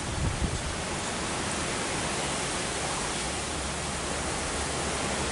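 Strong wind blowing steadily, a wide even hiss, with a gust buffeting the microphone about half a second in.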